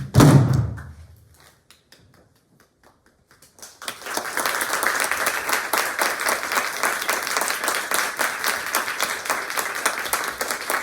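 A final heavy stroke of the buk barrel drums closing the piece, dying away within a second. After a pause of a few seconds, audience applause starts about four seconds in and continues steadily.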